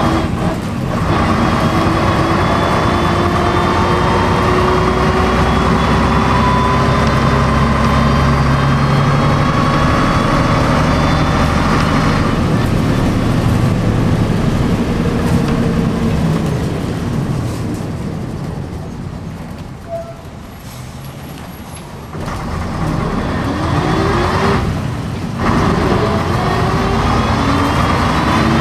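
Preserved AEC double-decker bus heard from inside the saloon, its diesel engine pulling through the gears with the note climbing. It eases off and goes quieter for a few seconds about two-thirds of the way through, then pulls away again with a short break in the engine note at a gear change.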